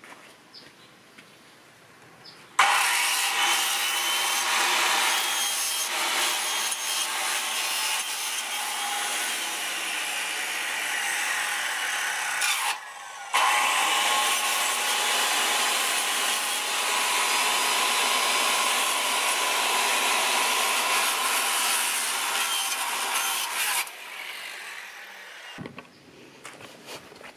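Circular saw cutting through a sheet of black plastic lattice. It starts suddenly a few seconds in and runs for about twenty seconds, breaks off for a moment about halfway and picks up again, then winds down near the end.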